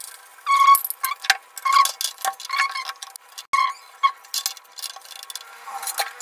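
Steel spoon clinking against steel cookware: a string of irregular, ringing metal taps, roughly one or two a second.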